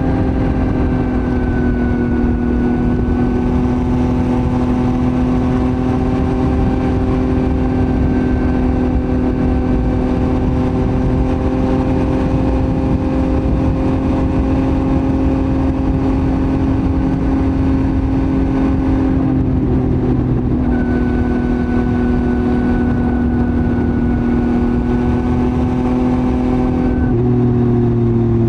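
Yamaha MT-09's three-cylinder CP3 engine through a Roadsitalia titanium full exhaust, running at a nearly constant pitch. There is a brief change about two-thirds of the way in and a slight drop in pitch near the end.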